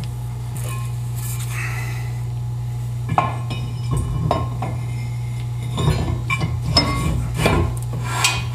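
Metal brake rotor clinking and scraping against the hub and wheel studs of a Sterling 10.5 full-floating axle as it is slid on. There is little for the first three seconds, then several sharp metal knocks, over a steady low hum.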